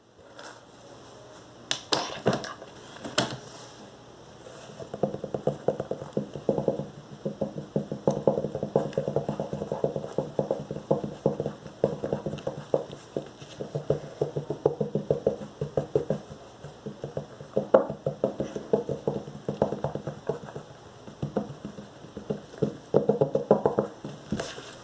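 Fingers working a bound book or notebook: a few separate taps, then a dense, rapid run of small clicks and scratches, like nails riffling or scraping along its pages and binding, that goes on almost to the end.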